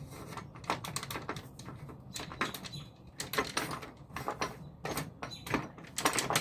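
Wooden pieces being handled and fitted together by hand: a run of irregular knocks and clicks, clustered in quick flurries.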